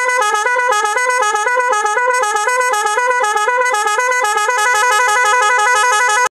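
A loud electronic musical horn playing a repeating tune, stepping between a few notes about four or five times a second. It cuts off abruptly.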